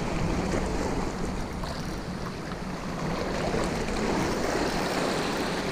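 Steady wash of sea surf at the shoreline, with wind on the microphone.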